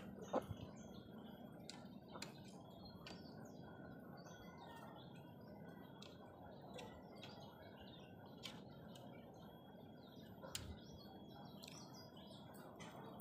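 Faint outdoor ambience with scattered short bird chirps and a few light clicks over a low steady hiss.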